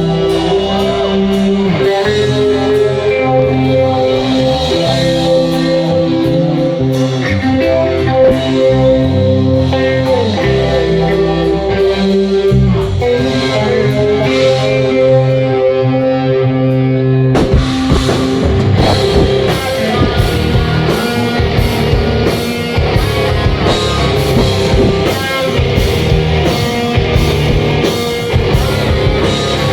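Rock band playing live: electric guitar and bass lines over drums. About halfway through the full band comes in harder, and the sound turns brighter and denser.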